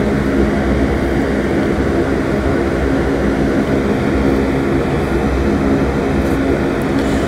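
A steady mechanical drone with a low hum, unchanging, as of a small machine running.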